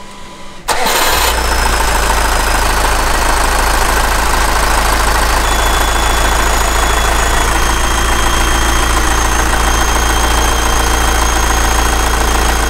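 Marine diesel engine cranked by the starter and catching within the first second, then running steadily. From about halfway a faint high squeak runs with it. The raw-water pump, with its newly fitted impeller, is not yet pushing cooling water through, which the crew put down to an airlock in the sea strainer.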